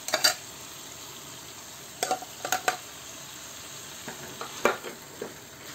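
Onion-and-spice masala sizzling steadily in a steel frying pan, with a few sharp clicks and scrapes of utensils against the pan as chopped canned tomatoes are tipped in and stirred through.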